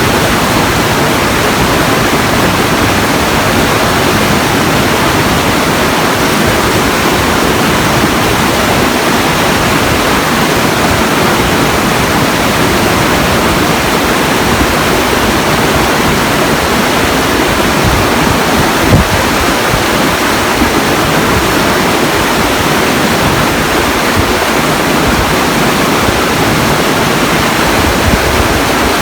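Steady, loud rush of falling water, an even hiss with no change in pitch or level, with a single brief knock about two-thirds of the way through.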